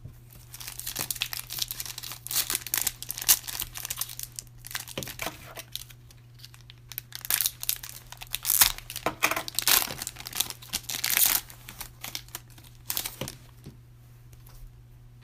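Trading card pack wrapper being torn open and crinkled by hand, in an irregular run of crackles that stops shortly before the end.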